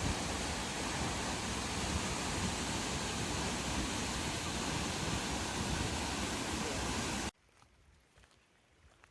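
Steady rush of a waterfall close by, an even dense noise across all pitches. It stops abruptly a little over seven seconds in, leaving a faint background with a few soft ticks.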